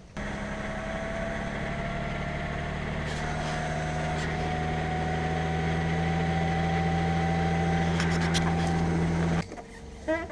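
Audi 3.0 TDI V6 diesel engine running steadily at about 1500 rpm, its pitch creeping up slightly, then cutting off suddenly near the end. The rattle at this engine speed is put down to the timing chain, with a clogged or restricted chain tensioner suspected.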